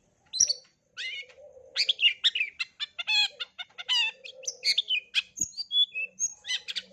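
Long-tailed shrike (cendet) singing a fast, varied string of chirps, trills and short whistles, with a brief pause about half a second in and a few falling whistled notes past the middle. It is the rich mimicking song (full isian) used as a master recording to teach young shrikes.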